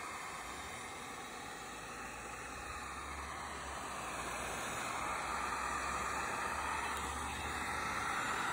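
Handheld electric heat gun blowing hot air over wet epoxy resin: a steady fan hiss with a low motor hum, growing louder about halfway through.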